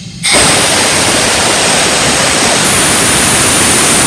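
Loud, steady rush of high-pressure compressed air blasting from an opened valve on a 1996 Ingersoll Rand portable air compressor. It starts suddenly and carries a thin high whistle that strengthens about halfway through.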